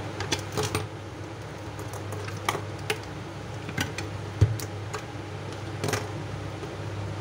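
Scattered metal clicks and knocks as a 50 W LED flood light's finned aluminium housing and steel mounting bracket are handled and taken apart, with small screw clamps set down on the bench, over a low steady hum.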